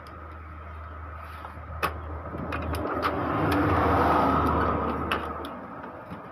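Motor-vehicle engine noise swelling to a peak about four seconds in and then fading, as a vehicle passes, over a steady low hum. A few sharp clicks of the printer's plastic cover being handled.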